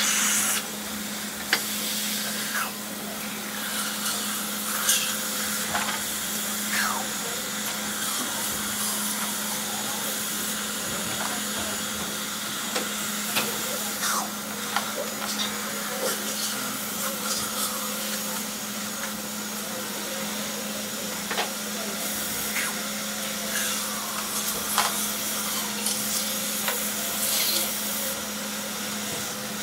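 Busy dental office ambience: a steady hum of dental equipment such as suction, with scattered clicks and clinks of instruments throughout and a few brief high bursts near the start and near the end.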